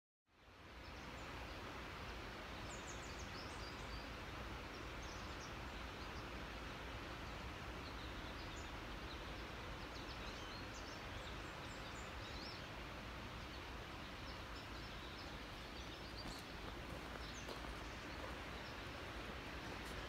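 Woodland ambience: small birds chirping in many short, high calls over a steady rushing hiss, fading in just after the start.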